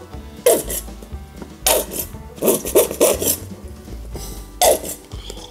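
Plastic squeeze tube of body lotion being squeezed upside down, giving a series of short raspy squirts as lotion and air are forced out of the nozzle.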